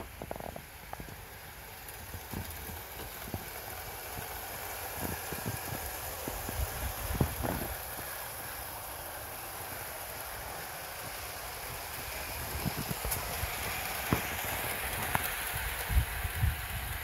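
Hornby OO-gauge Merchant Navy model locomotive and its twelve-wheel Pullman coaches running along the track: a steady rattle and hum of motor and wheels on the rails, growing louder as the train comes close. A few low thumps and clicks sound now and then.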